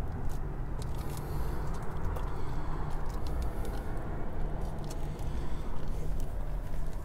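Steady low rumble with light clicks and rustles scattered through it, as from a handheld phone being moved around a car interior.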